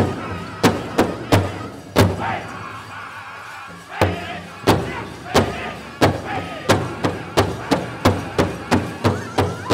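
Pow wow drum group playing a chicken dance song: a big drum struck in unison under high-pitched singing. The beat drops out for about two seconds, then comes back and quickens to about three strikes a second.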